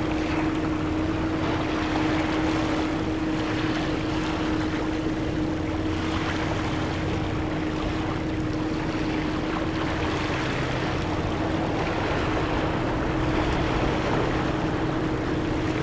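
Small waves washing over a rocky, seaweed-covered shoreline, with wind on the microphone and a steady low motor hum, such as a boat engine, underneath.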